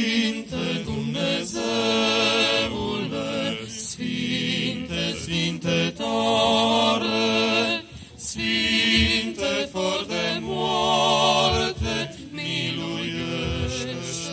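Unaccompanied Orthodox liturgical chant, sung in long held phrases with a short break about every four seconds.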